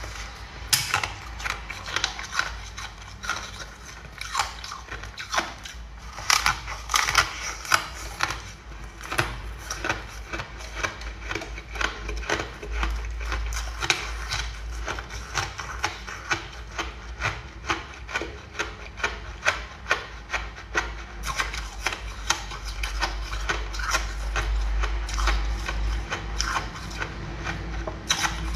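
Frosty ice being bitten and chewed: many sharp crunches and crackles in quick runs.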